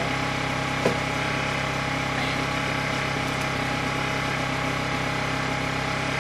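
Steady engine hum running at an even pitch, with a single light click about a second in.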